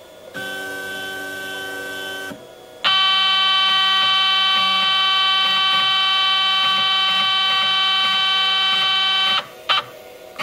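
Stepper motors of a home-built CNC machine whining at steady pitches as the axes move. A quieter tone lasts about two seconds, then a louder whine holds for about six seconds and stops, with a short blip near the end.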